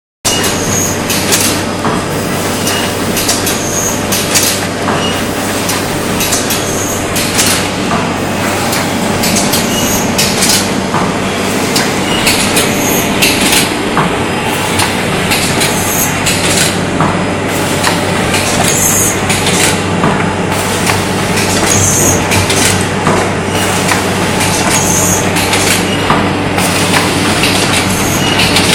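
HM-ZD240 automatic rigid box making machine running: a steady mechanical din with a low hum and a continual clatter of clicks and knocks from its feeding, gluing, conveyor and box-forming units.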